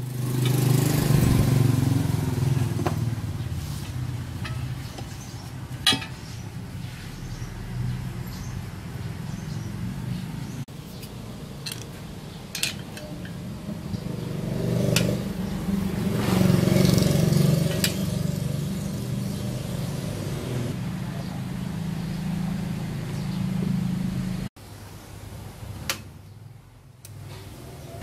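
A steady low engine-like rumble that swells and fades, with sharp metal clinks now and then as the stainless exhaust pipe sections are handled.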